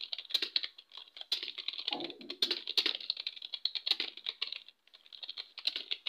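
Fast touch-typing on a desktop computer keyboard: a rapid, uneven clatter of keystrokes, with a short pause near the end before the typing resumes.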